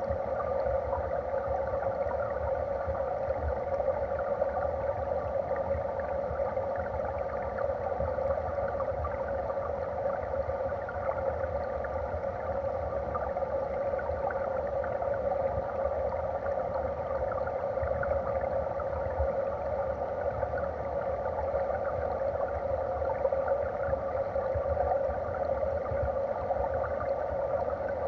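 Stream water rushing, heard underwater: a steady, muffled wash with a low rumble beneath it.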